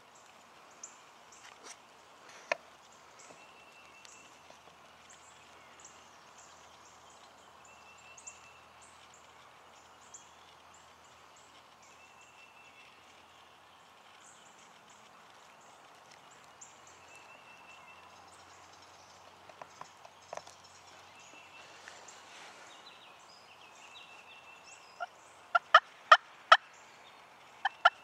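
Wild turkey calling, with a loud run of sharp, closely spaced notes near the end that stands out above everything else. A small bird repeats a short high whistle in the background.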